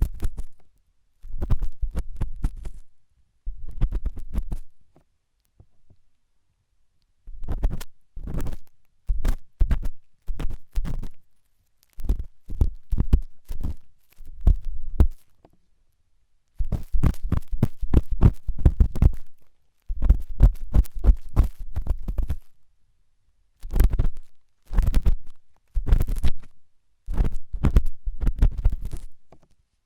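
Intense ASMR ear cleaning: a tool scraping and scratching hard inside the ear, heard up close with a deep rumble, in bursts of rapid scratching a few seconds long separated by short pauses.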